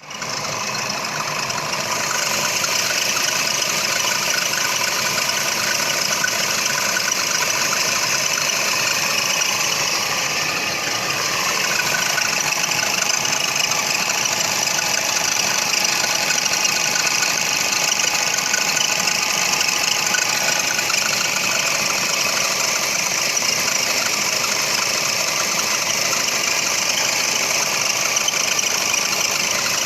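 Toyota Funcargo engine idling with the alternator drive belt squealing steadily.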